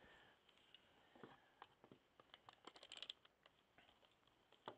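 Near silence with faint, scattered light clicks and taps from small parts being handled, including a quick cluster of clicks about three seconds in.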